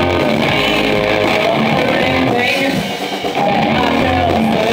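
Live rock band playing loud, with electric guitars and a drum kit, and a brief dip in loudness about three seconds in.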